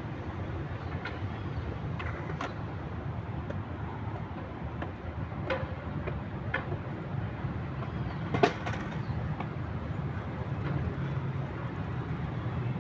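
Steady low rumble of city traffic, with scattered light clicks and knocks and one sharp crack about two-thirds of the way through.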